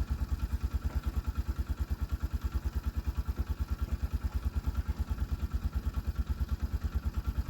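Vehicle engine idling: a steady low throb pulsing about ten times a second.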